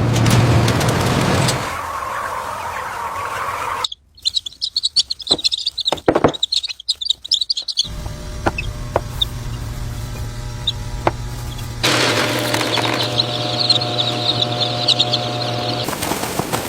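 Many chicks cheeping in a poultry house, in short separate stretches, with a steady low mechanical hum under and between them.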